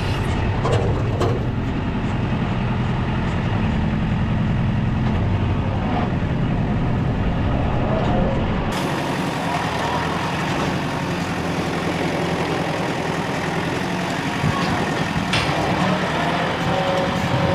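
Kubota tractor's diesel engine running steadily while the front loader is worked, with a few light clicks near the start and a shift in tone about nine seconds in.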